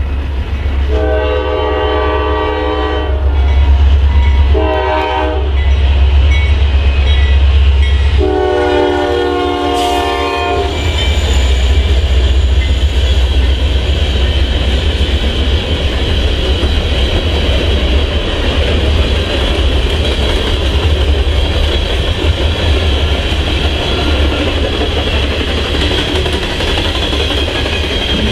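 Freight locomotive's multi-note air horn sounding a long, a short and a long blast for a grade crossing, then the steady rumble and clatter of the freight train's cars rolling past.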